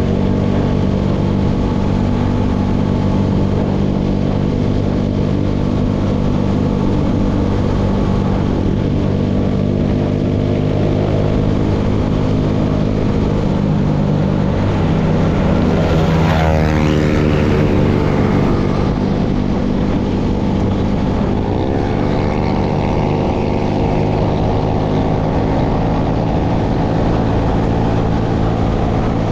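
Engine of a tractor working a baler, running steadily. About halfway through its pitch sags, and a few seconds later it climbs back up to a steady speed.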